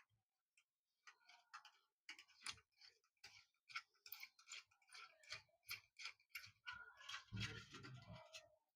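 Faint, irregular metallic clicks and scrapes of a screw being undone on the metal mounting strip of an electric heater's tubular heating rod, with a louder burst of handling noise about seven seconds in as the old rod comes free.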